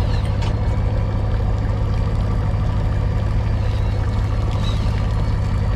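A fishing boat's engine running steadily with a constant low drone.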